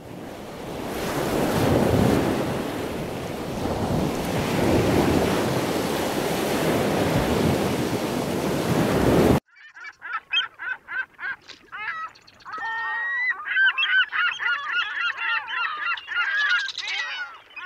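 A loud rushing noise that swells and eases for about nine seconds, then cuts off suddenly; after it a flock of birds calls, with short calls at first that become a busy, overlapping chorus.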